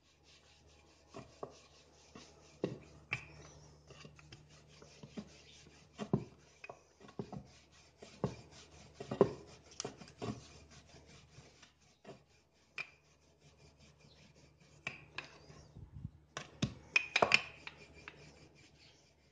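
Wooden rolling pin rolling paratha dough out on a floured wooden board: soft rubbing and scraping with scattered knocks of wood on wood as the pin is pushed back and forth.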